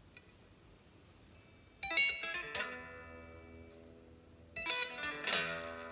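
Electric guitar being strummed: a chord struck about two seconds in and left ringing, then two more strums near the end.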